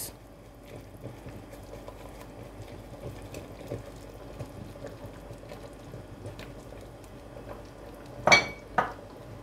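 Wooden spoon stirring ground ogbono into simmering stock and oil in an enamelled cast-iron pot, soft scraping and bubbling with many small ticks, stirred so the ogbono does not form lumps. Near the end come two sharp clinks about half a second apart.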